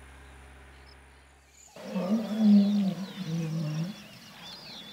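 A faint steady hum, then, about two seconds in, an African elephant gives a low, drawn-out call of about two seconds that drops a little in pitch partway through. Birds chirp faintly behind it.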